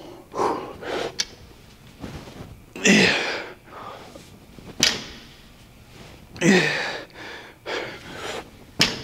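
A man breathing hard and grunting with effort through a weightlifting set, each strained exhale dropping in pitch. A few sharp knocks of the equipment come in between.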